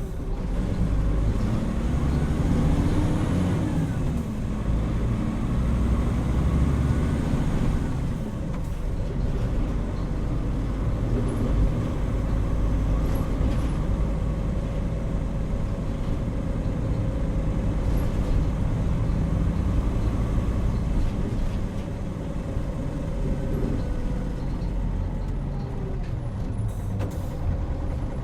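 Interior running sound of a Hino Rainbow HR (PB-HR7JHAE) diesel route bus under way. The engine note rises and then falls over the first few seconds, then the bus runs on steadily with a constant tone.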